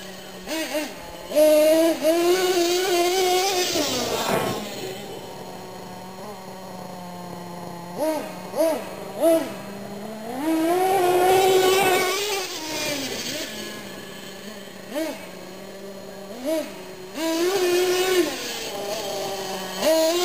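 Small engine of a radio-controlled monster truck idling and being revved in short throttle blips and three longer pulls of about two seconds each, the pitch rising and falling with the throttle.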